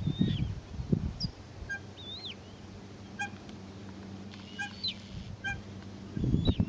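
Eurasian coots calling: a few short, sharp pips repeated at intervals, and thin high squeaky calls that rise and fall in pitch. A low rumbling noise underlies them and grows loud from about six seconds in.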